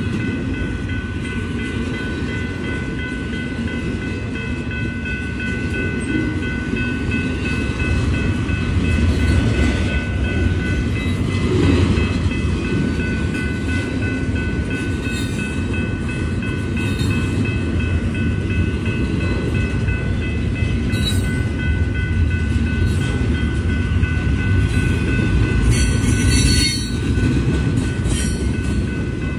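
Norfolk Southern intermodal container train rolling past, its cars making a steady low rumble. A steady high-pitched squeal rides over it and stops about 26 seconds in, with a few sharp clicks near the end.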